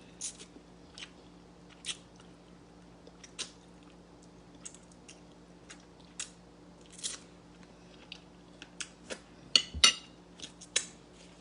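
Close-miked chewing and mouth sounds of a person eating stewed fish: irregular small wet clicks and smacks, with a denser cluster near the end.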